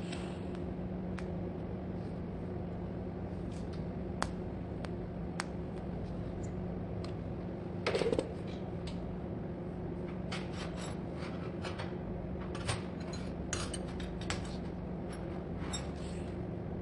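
Light metal clicks and clinks, scattered at first and then coming thicker, with one louder clatter about eight seconds in, over a steady low hum.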